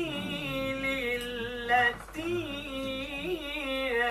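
A man's solo Quran recitation in melodic tajweed style, held on long, ornamented vowels without clear words. Two long sung phrases with a short break about two seconds in.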